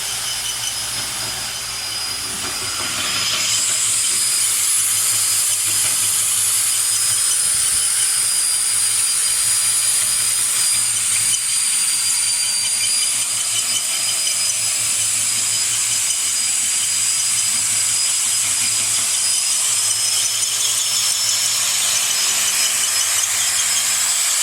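Portable line-boring machine running, its cutter machining a pin bore in a backhoe swing frame, with a steady high-pitched whine that gets louder about three and a half seconds in.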